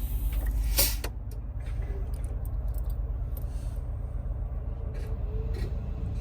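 2019 Volvo VNL semi truck starting up: a broad rush of noise for about the first second, then a steady low rumble with faint brief tones as the truck runs its start-up system check.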